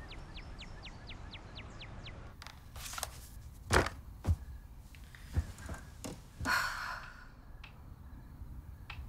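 A quick run of faint high chirps, then soft knocks, rustling and two sharp thuds as a woman in bed sets down her book and shifts, followed by one long breathy sigh as she lies back.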